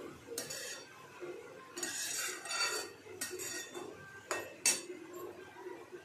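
Metal spatula stirring and tossing boiled noodles in a steel pan, scraping across the metal in several strokes, with two sharp metal clinks against the pan a little past the middle.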